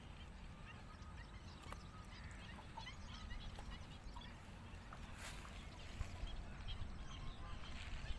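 Faint outdoor background: a low steady rumble with scattered faint bird chirps and a few light clicks.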